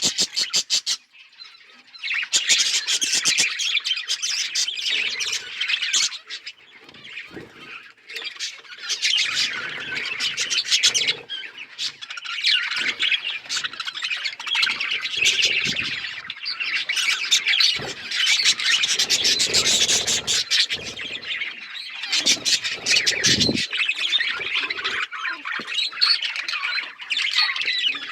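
A flock of budgerigars chattering, warbling and squawking together in an outdoor aviary, with a brief lull about a second in.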